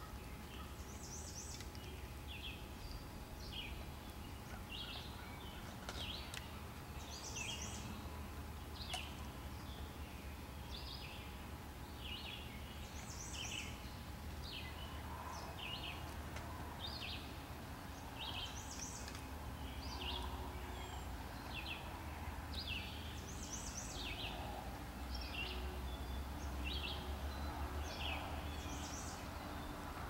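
Wild songbirds chirping: short high chirps one to two a second, with a higher call about every five seconds, over a low steady rumble.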